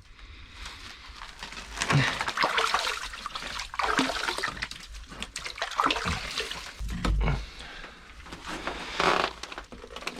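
Irregular wet splashing and squelching of water in an ice-fishing hole as baited line is handled and lowered.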